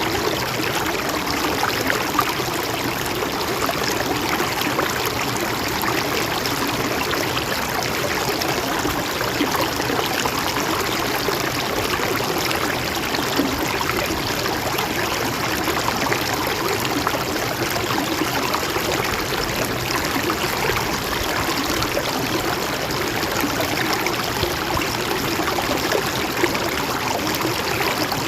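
Gentle mountain stream with water flowing steadily and evenly.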